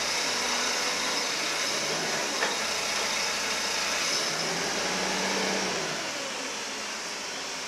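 Toyota 7FGF25 LPG forklift's engine running steadily with a constant hiss while the raised mast begins to lower, with a low hum around the middle and a slight drop in level after it.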